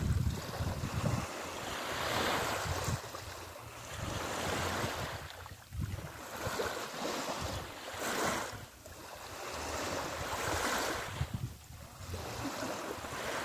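Small sea waves washing up onto a sandy beach and drawing back, the wash swelling and fading about every two to three seconds.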